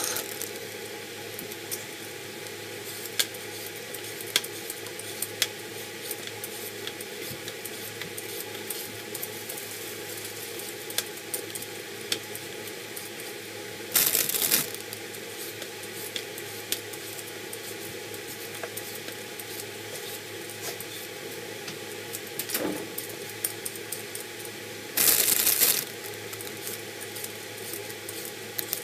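Potatoes being peeled by hand with a peeler: scattered light scrapes and clicks, with three short, louder bursts of noise, about 14 and 25 seconds in and just before the start, over a steady background hum.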